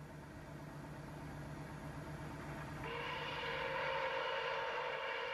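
Milwaukee Road 261 steam locomotive approaching with a low rumble, then sounding one long signal blast about three seconds in: a steady chord of several tones held for a couple of seconds.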